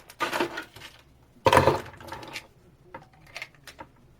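Knocks, scrapes and clicks of parts being handled as a rubber pipe coupling is worked onto the end of a Schedule 40 PVC tube, the loudest knock about a second and a half in.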